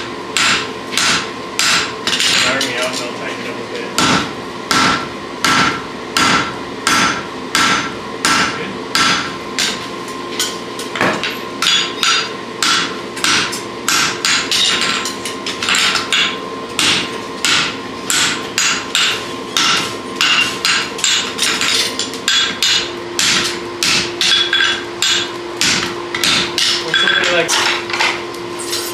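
Blacksmith's hand hammer and a striker's sledgehammer beating red-hot steel on an anvil in a steady rhythm, about two blows a second, forging a draft horseshoe.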